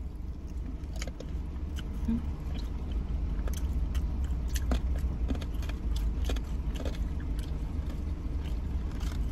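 People crunching and chewing fried pork belly chicharrones with crispy skin: scattered short, sharp crunches over a steady low rumble.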